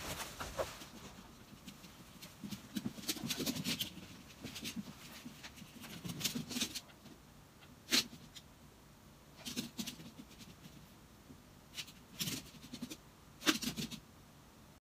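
Faint sounds from a small white fluffy dog: a few short, sharp noises a couple of seconds apart, the sharpest about eight seconds in, over soft low sounds in the first half.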